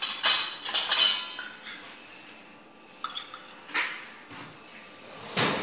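Metal clinking and clattering in a busy fish market: a series of sharp strikes with a short ring after each, over a steady high hiss.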